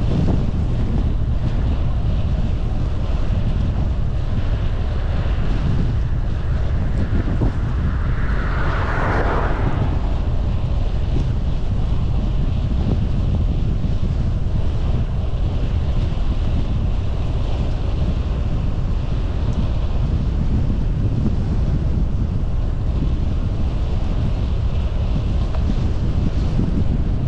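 Wind buffeting the microphone: a steady low rumble, with a louder hiss swelling and fading about eight seconds in.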